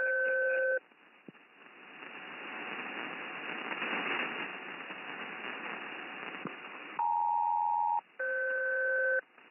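HF aviation radio in upper sideband carrying SELCAL tones. A two-tone pair ends about a second in, then the empty channel hisses, swelling and fading. Near the end a full SELCAL call plays: two pairs of steady tones, each about a second long with a short gap between, that page an aircraft and set off its cockpit selective-calling alert.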